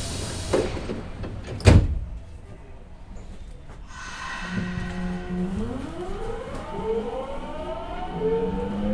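Subway train doors sliding shut with a thump about two seconds in. About four and a half seconds in, the Nagoya Municipal Subway 5050 series train's Hitachi GTO-thyristor VVVF inverter starts with a steady low hum, then several whines climb in pitch together as the train pulls away.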